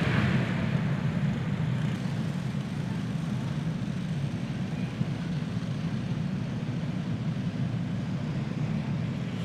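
Several Predator single-cylinder kart engines running together in a steady drone as the field circles at reduced pace under a caution.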